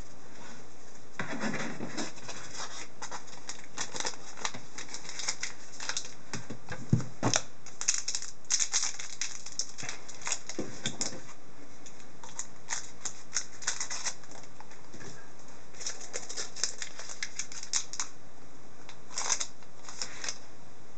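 Trading-card packs and cards being handled: crinkling foil wrappers and cardboard rustling, with an irregular scatter of small sharp clicks and a few longer rustles.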